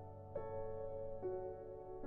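Slow, soft background music of held keyboard notes, with new notes coming in about a third of a second in and again just after a second.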